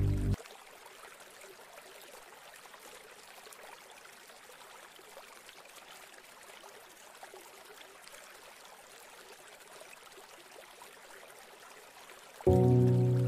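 Faint, steady rush of water, like small waves or a stream. Background music cuts off just after the start and comes back loudly near the end.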